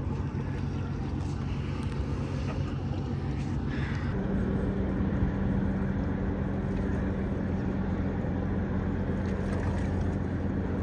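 Steady low boat-engine drone over wind and water noise; the drone's pitch changes abruptly about four seconds in.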